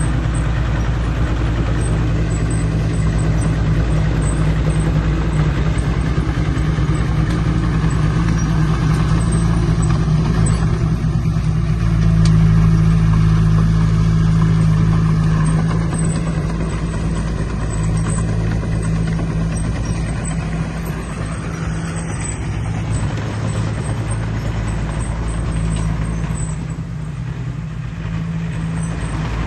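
Heavy diesel engine of earthmoving equipment running steadily, getting louder about twelve seconds in and easing back a few seconds later.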